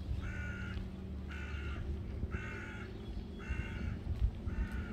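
An animal calling five times, about once a second, each call about half a second long, over a low background rumble.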